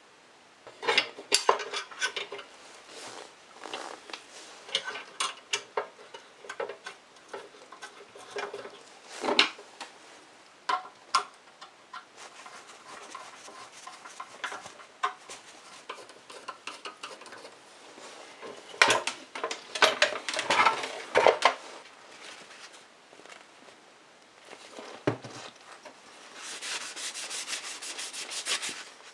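Metal clicks and clinks as the chrome sandwich toaster is screwed back together with a screwdriver. Near the end comes a steady rubbing as a paper towel works mineral oil into a wooden handle.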